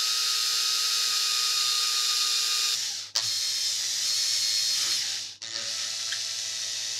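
Makita cordless drill running steadily while boring a hole through cast polyester resin, with a steady whine over a high hiss. It breaks off briefly twice, about three seconds in and again about five seconds in.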